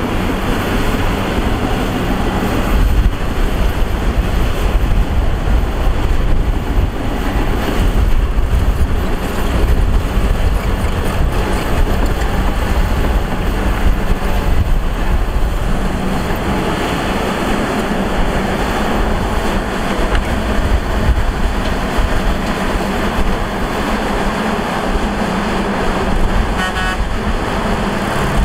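Diesel engine of a Shantui ME315 crawler excavator running steadily under load as it digs and loads dirt: a heavy low rumble, settling into a steady hum from about halfway. A short rattle comes near the end.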